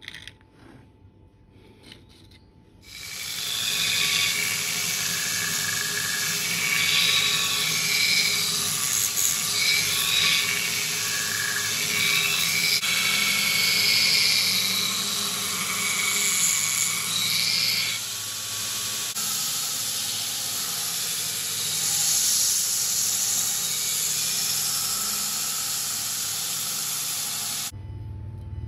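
Belt grinder running: a loud rushing hiss with whines that shift in pitch. It starts abruptly about three seconds in and cuts off about a second before the end.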